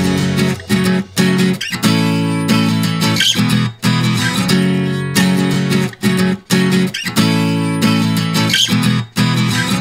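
Background music led by a plucked acoustic guitar.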